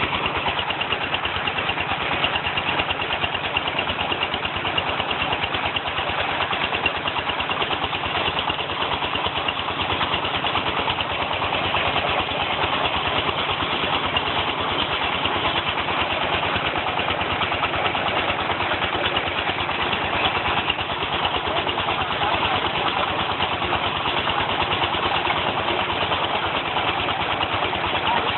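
Engine-driven red brick press machine running steadily with a fast, even mechanical beat.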